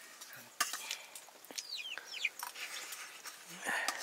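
Two high, falling chirps from a bird, likely domestic fowl, about two seconds in, among scattered sharp clicks and knocks of cooking work.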